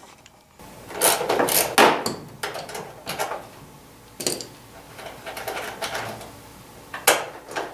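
Irregular knocks and clatters as bolts are undone and the plastic body panels are handled on a small 100cc quad ATV: a cluster about a second in, a few single knocks after, and a sharp knock near the end.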